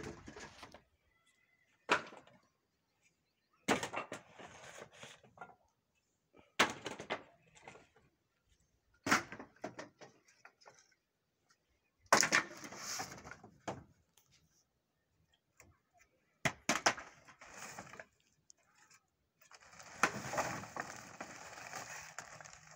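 Wooden planks and poles thrown down from a pickup onto a pile, each landing with a sharp clatter about every two to three seconds. A longer stretch of rattling and scraping timber comes near the end.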